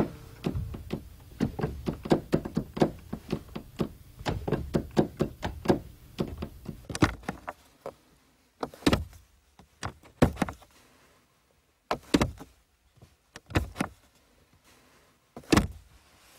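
A quick, irregular run of sharp knocks and clicks, several a second, for about eight seconds. After that come a handful of single, louder knocks spaced one to two seconds apart, the last near the end.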